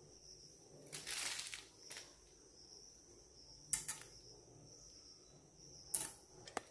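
Faint handling sounds of small bata fish being cut against the upright blade of a boti: a short rustle about a second in, then a few soft clicks and taps.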